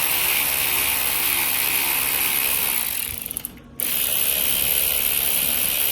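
Impact wrench running on the alternator bolts of a Honda Del Sol engine, in two runs with a short stop about three and a half seconds in.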